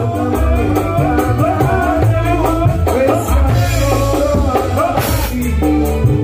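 Live campursari band playing loud through a sound system: drum kit and bass keep a steady beat under a wavering melody line, with a cymbal crash about five seconds in.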